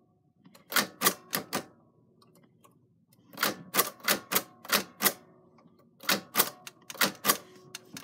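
Typewriter keys striking in three quick runs of about four to six strokes each, with short pauses between.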